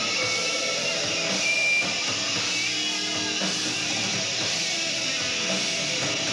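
Live rock band playing: electric guitars, bass guitar and drum kit at a steady level, with a short high note ringing out about a second and a half in.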